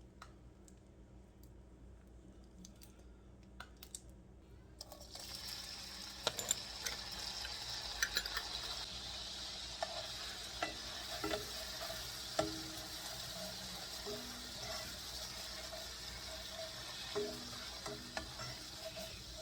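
Garlic going into melted butter in a hot skillet about five seconds in, setting off a steady sizzle, with the clicks and scrapes of a utensil stirring it in the pan.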